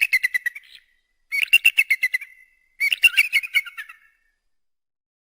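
An eagle's high, chattering call: rapid piping notes in three bursts of about a second each, each burst stepping slightly down in pitch. The calls stop about four seconds in.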